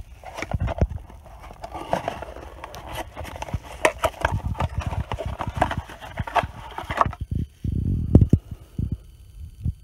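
Cardboard parts box being opened by hand and the part pulled out of its packaging: irregular papery scraping, crinkling and tapping, then a few dull handling thumps near the end.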